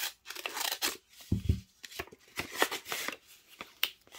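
Rustling and crinkling of a kraft paper envelope being handled as a cling stamp is slid out of it, in short irregular crackles, with a dull bump about a second and a half in.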